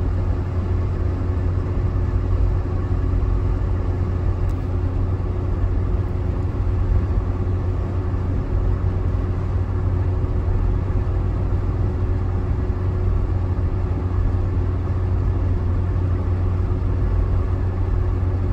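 A car's road and engine noise heard from inside the cabin while driving at steady speed: a constant low rumble with a faint steady hum over it.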